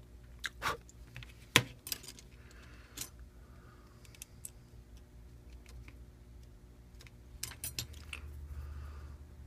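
Scattered small clicks and taps of phone parts and small tools being handled during a smartphone screen repair. The sharpest click comes about one and a half seconds in, with a quick cluster of them near the end, over a faint steady hum.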